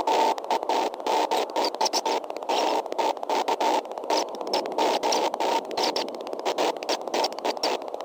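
Steady hissing noise from a nest-cam microphone, cutting out briefly many times a second so that it sounds choppy.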